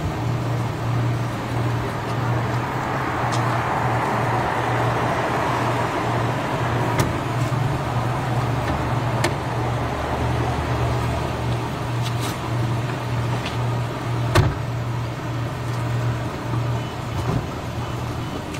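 Street traffic noise with a steady low engine hum, swelling as a vehicle passes a few seconds in. A few sharp knocks sound over it, the loudest about fourteen seconds in.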